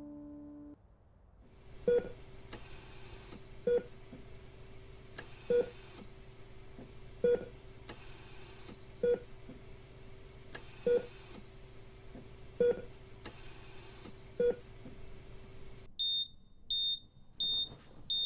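Hospital patient monitor beeping slowly, about once every two seconds, over a steady electrical hum. Near the end the hum stops and it switches to a quicker, higher-pitched alarm beep, the monitor sounding an alarm for a patient in crisis.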